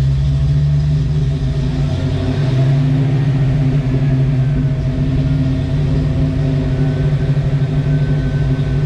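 Ford 5.0 V8 running at a high idle, engine speed rising in the first seconds and then holding steady. The high idle comes from the Holley EFI's idle air control, now set 50% open.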